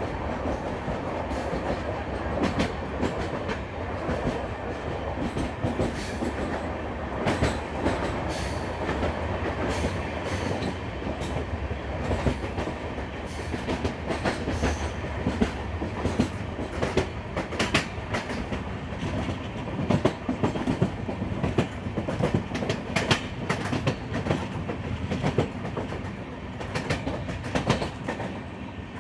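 Train running along the track: a continuous rumble of wheels on rail, with many sharp, irregular clicks and clacks as the wheels pass over rail joints.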